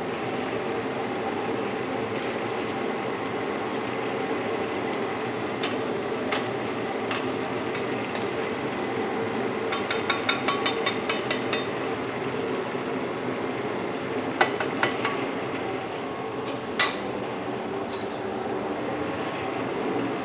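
Metal ladle or strainer clattering and tapping against a large wok as fried chilies are scooped out of hot oil, with a quick run of about ten taps near the middle and a few single sharp knocks later, over a steady sizzle of frying oil.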